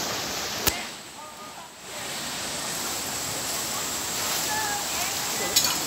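Steady rush of a flowing river, with a sharp click under a second in and a few quick clicks near the end.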